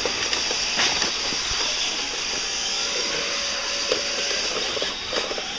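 Steady, even hiss from a poor camera microphone, with a few faint clicks and a brief faint whine around the middle.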